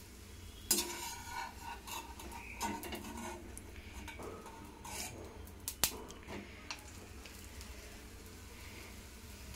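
Perforated steel skimmer scraping and clinking against a stainless steel kadai as slices of bread are moved in hot ghee, with sharp clinks just under a second in and about six seconds in, over a faint frying sizzle.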